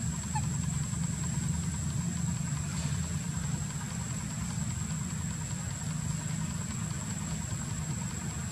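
Steady low hum like an idling engine, with a thin steady high-pitched whine above it.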